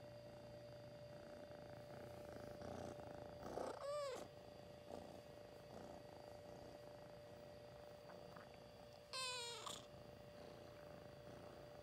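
Calico kitten purring softly on a lap, with two short meows, one about four seconds in and one about nine seconds in.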